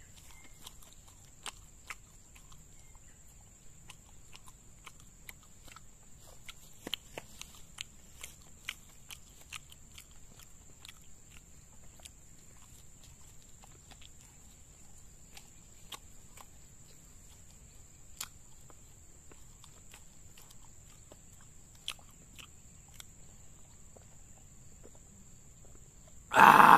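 Close-up chewing and mouth sounds of a man eating martabak: faint, scattered smacks and clicks. Near the end comes a short, loud slurp through a drinking straw.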